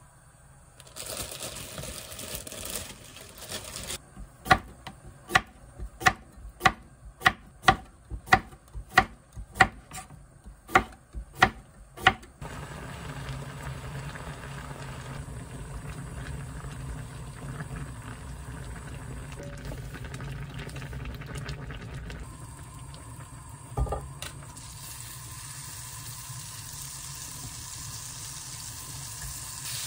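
About a dozen sharp knife strokes on a wooden cutting board, evenly spaced a little over half a second apart. Then a steady low hum. Near the end comes a single knock, and butter starts to sizzle in a frying pan.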